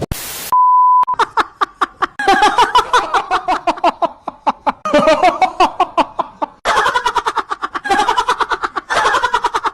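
A brief hiss and a short beep, then high-pitched rapid laughter in several bouts, about five 'ha' pulses a second.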